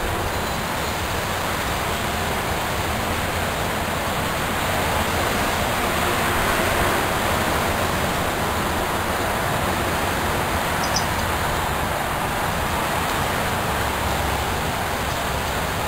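Steady splashing and running water of a backyard bird fountain, with one brief faint high chirp about two-thirds of the way through.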